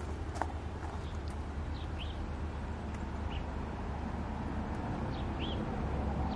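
Garden ambience: several short, high bird chirps a second or two apart over a steady low rumble.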